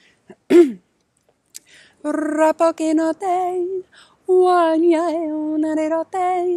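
A woman singing light language, wordless channelled syllables on held notes that step up and down in pitch, from about two seconds in with a short break near the middle. About half a second in comes one short, loud vocal cry that falls in pitch.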